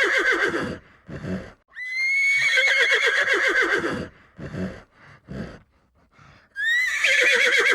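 Horse whinnying: a call rises sharply, then quavers and falls. It ends just under a second in, a second whinny of the same shape comes about two seconds in, there are short snorts around the middle, and a third whinny starts near the end.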